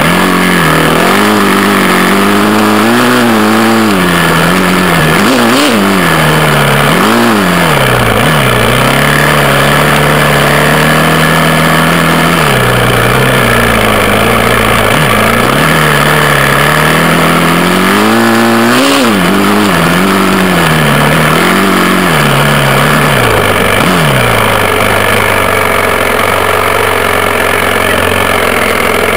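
Four-stroke enduro dirt bike engine heard from on the bike, revving up and down repeatedly as it is ridden over rough gravel, holding a steady pitch for a while in the middle, and settling to a steady idle over the last few seconds.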